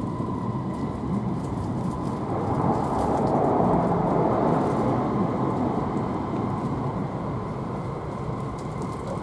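Nishi Kyushu Shinkansen Kamome N700S train heard from inside the carriage: steady running noise with a faint whine, swelling a few seconds in and easing off again.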